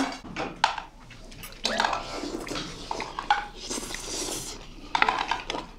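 Eating sounds: spoons and chopsticks clicking against bowls, and the wet chewing of stir-fried webfoot octopus, in scattered short clicks and squishes. A short pitched sound comes about two seconds in.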